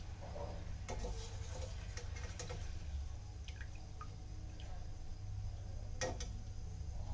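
Wire-mesh skimmer lifting fried banana chips out of hot oil in a steel pan, with oil dripping back and a few light metal clinks of the skimmer against the pan, the loudest about six seconds in.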